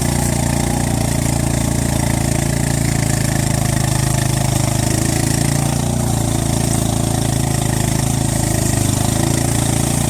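A vehicle engine running steadily at a constant speed, close by, with no change in pitch or load.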